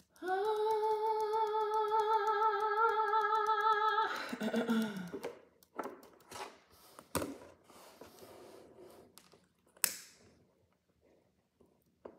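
A woman humming one long held 'om' on a steady, slightly wavering note for about four seconds, then sliding down and trailing off. Two sharp clicks follow later.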